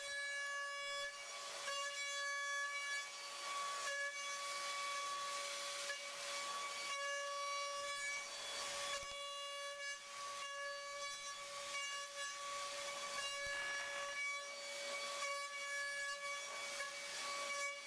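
DATRON M8Cube high-speed milling machine cutting a mold: the spindle gives a steady high-pitched whine over a hiss of cutting noise that swells and fades, with a few brief dips.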